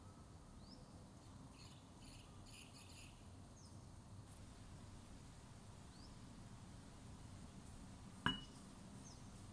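Near-silent room tone with a few faint high chirps, then about eight seconds in a single sharp glass clink with a short ring as a small glass bowl knocks against a glass pitcher.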